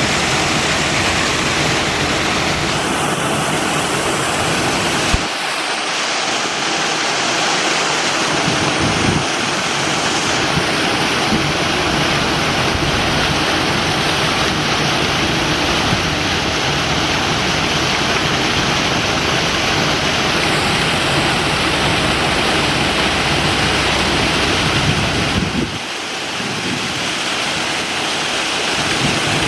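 Water rushing and splashing steadily into the polar bear pool, a continuous churning rush. The deep part of the rush thins briefly about five seconds in and again near the end.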